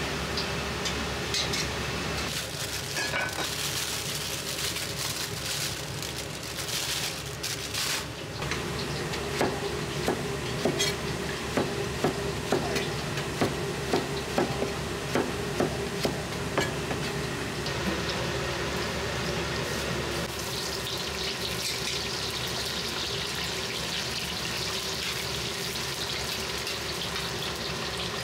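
Steady kitchen hiss of a wok range with a tap running. Midway, a cleaver chops through an eggplant on a plastic cutting board, about two sharp knocks a second for several seconds; from about two-thirds of the way in, eggplant pieces sizzle as they deep-fry in hot oil in a wok.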